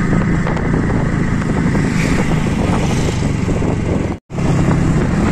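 TVS Radeon's 110 cc single-cylinder air-cooled engine running steadily at an economy cruising speed, heard from the rider's seat on the moving motorcycle. The sound cuts out abruptly for a split second about four seconds in, then resumes.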